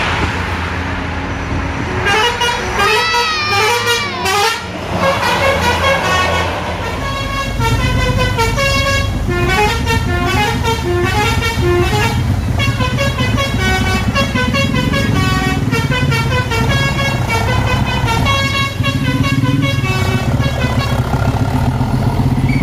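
A bus's Basuri telolet horn playing quick tunes of stepped, multi-tone notes, with warbling siren-like glides in the first few seconds. Underneath, a bus engine rumbles steadily, heavier from about seven seconds in.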